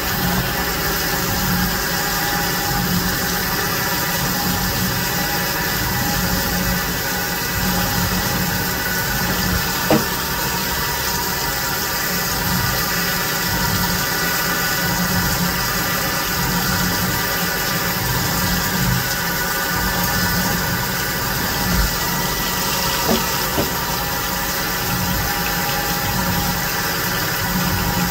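CNC milling machine cutting a cast aluminum plate under flood coolant: steady spindle and cutting noise mixed with the hiss of coolant spray. A few sharp clicks stand out, one about ten seconds in and a couple more near two-thirds of the way through.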